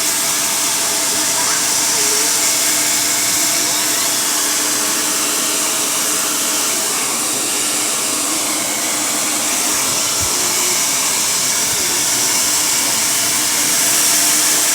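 Handheld hair dryer blowing steadily, a loud even rushing hiss with a faint steady whine, as it dries hair.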